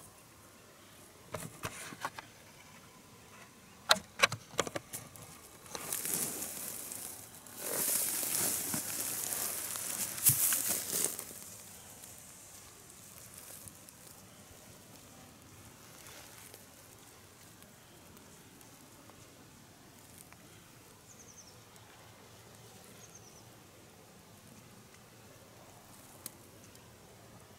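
Handling noise: a few sharp knocks, then several seconds of rustling and scraping as the camera is moved and reframed. After that comes quiet outdoor background with two faint, short, high chirps; no elk bugle is heard.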